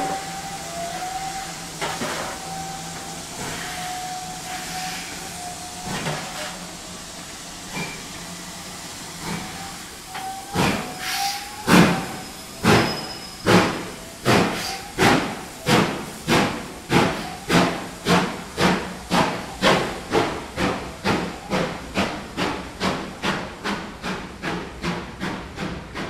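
Steam locomotive pulling away: steam hissing with a thin steady tone, then exhaust chuffs starting about ten seconds in. The chuffs begin slow and heavy and quicken to about two a second, growing gradually quieter as the engine gets under way.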